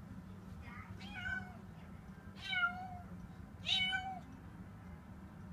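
Domestic cat meowing three times, about a second apart, each meow bending up then down in pitch. The cat is apparently alarmed by a room heater just switched on for the first time that season. A steady low hum runs underneath.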